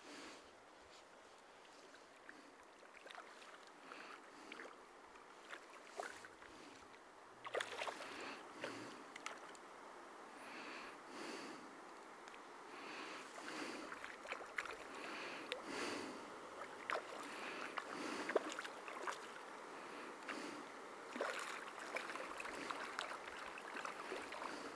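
Faint river water flowing and lapping, with irregular small splashes and ticks; it gets a little louder from about seven seconds in.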